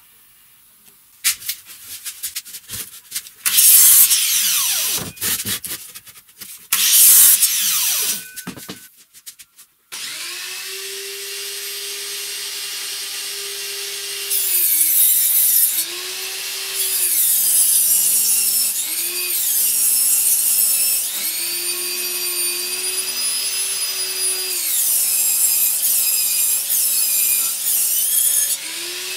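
Two short, loud bursts of power-tool noise early on, then an electric table saw starts about ten seconds in and rips a softwood beam lengthwise along the fence in several passes. The cutting noise swells and fades as the wood is fed through, over the steady hum of the saw.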